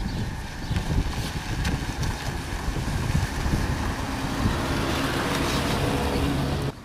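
Low rumble of a motor vehicle engine running close by, mixed with wind buffeting the microphone; a steady engine hum settles in during the second half, and the sound cuts off abruptly near the end.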